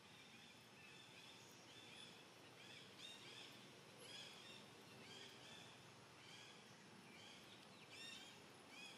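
Faint birds chirping in the background: many short, arched notes repeating a few times a second over a low outdoor hiss.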